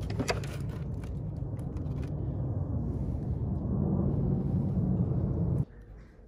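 A steady low rumble that swells near the end and then cuts off suddenly, with a few light plastic clicks near the start as a tool case is handled.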